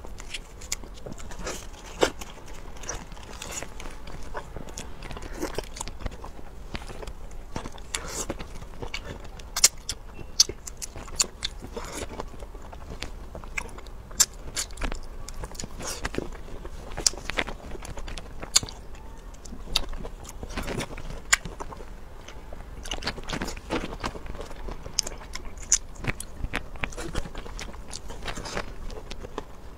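Close-up chewing and biting sounds of a person eating, with many irregular sharp mouth clicks.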